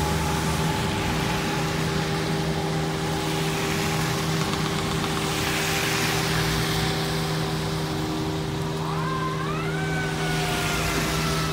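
Traffic on a rain-wet road: a steady engine hum, and tyres hissing as a car passes close about six seconds in. Under it a receding fire engine's siren wails faintly, slowly falling in pitch, then winds up again about nine seconds in and slowly falls.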